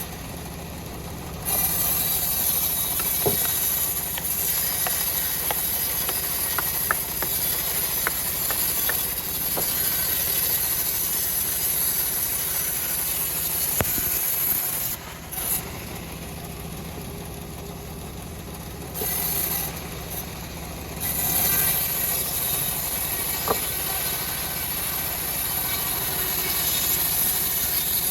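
Homemade engine-driven bandsaw mill sawing a teak log: a steady machine hum under a loud high hiss from the blade in the wood. The hiss drops out briefly about 15 seconds in and again for a couple of seconds near 19 seconds.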